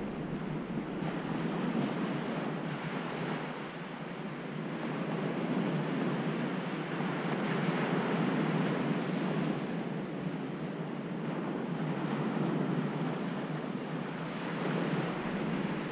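Ocean surf breaking and washing up the beach, rising and falling in slow swells, loudest about eight seconds in, with wind on the microphone.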